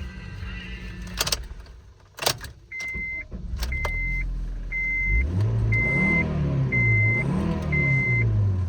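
Two sharp clicks, then six evenly spaced beeps about a second apart. Partway through the beeps the Honda CR-V's 2.4-litre four-cylinder engine starts, is revved up and down twice, and settles back to idle.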